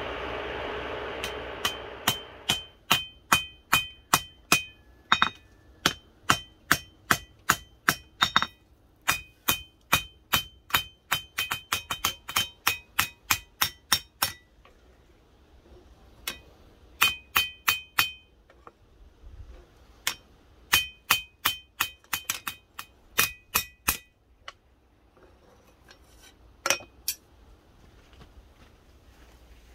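Hand hammer striking a red-hot leaf-spring steel knife blade on an anvil, hot forging the blade: runs of ringing metal blows, a couple a second, broken by short pauses. A steady rushing noise fades out in the first two seconds.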